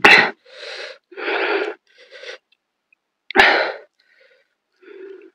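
A person's two sharp, explosive bursts of breath from the mouth, about three seconds apart, with loud wheezy breathing in between.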